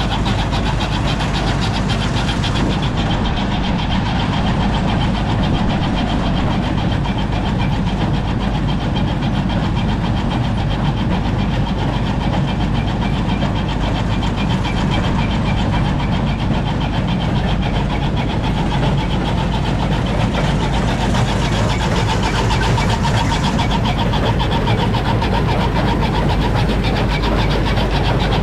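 An engine running steadily at constant speed, with an even, unchanging level.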